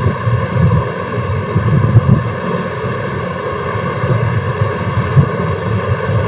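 Steady rushing noise with a fluctuating low rumble underneath, as loud as the room's background between sentences.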